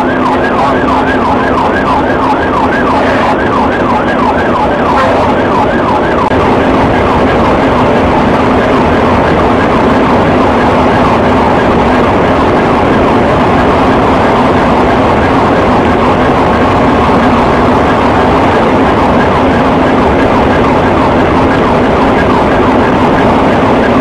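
Police car siren cycling in rapid repeated sweeps, heard from inside the patrol car over loud engine and road noise at highway speed. The sweeps are plainest for the first ten seconds or so and fade under the road noise after that.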